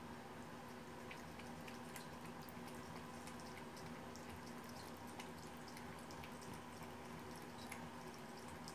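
Thin stream of tap water trickling into a bathroom sink, with faint irregular wet ticks from a cat lapping the water off its paw.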